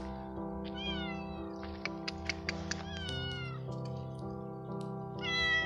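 Tabby cat meowing three times, each meow sliding down in pitch, over background music of sustained notes.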